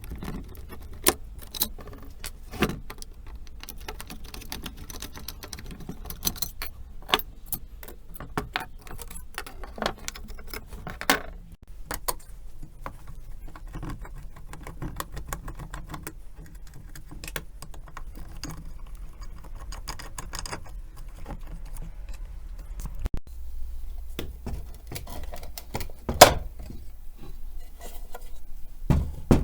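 Small metal parts and hand tools being handled, clinking, tapping and rattling in irregular clicks, with a few sharper knocks and one loud knock a few seconds before the end.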